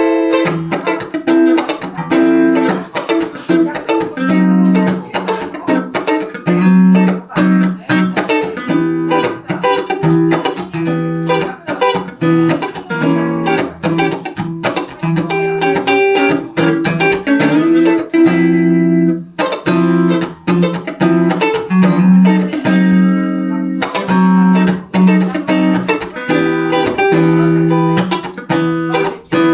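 Van Zandt Telecaster electric guitar played through a Roland JC-120 amp, in an instrumental passage of picked notes and chords with no singing. The playing pauses briefly about two-thirds of the way through.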